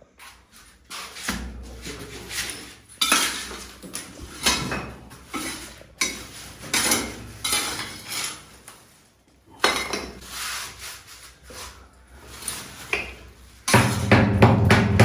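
Hard objects scraping and clinking against one another in a run of irregular strokes, typical of metal tools being worked against porcelain or a pipe. A louder, deeper scrape or rumble comes near the end.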